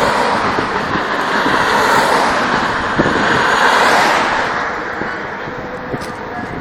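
A car passing on the road: its tyre and engine noise swells about two to four seconds in, then fades.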